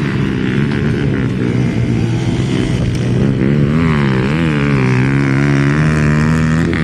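Motorcycle engine revving up and down repeatedly as the bike rounds a corner. About halfway through, a second, higher engine whine swells and fades.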